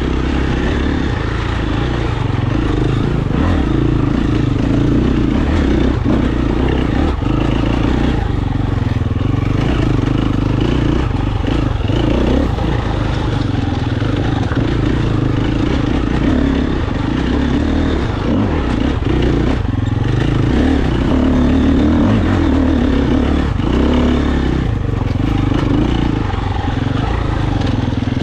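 KTM 350 enduro motorcycle's single-cylinder four-stroke engine running continuously while ridden off-road, its note shifting with the throttle. Occasional knocks and rattles come from the bike over rough ground.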